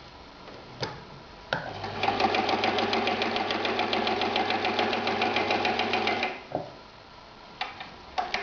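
Husqvarna 2760 sewing machine stitching through leather, running at a steady fast pace of about ten stitches a second for roughly four and a half seconds with a low motor hum. Sharp clicks come before the run and after it stops.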